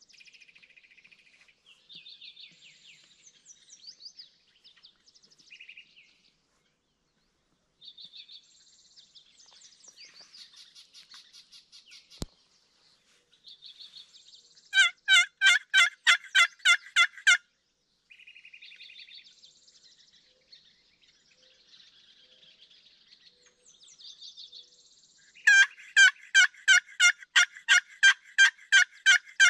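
Turkey yelping: two long runs of loud, evenly spaced yelps at about four to five a second, the first midway and the second near the end. Small songbirds chirp faintly throughout, and there is a single sharp click a little before the first run.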